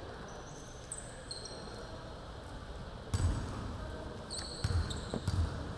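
A basketball bounced on a hardwood gym floor by a free-throw shooter dribbling before the shot: three thuds in the second half, the last two about half a second apart. Short high sneaker squeaks are scattered across the court.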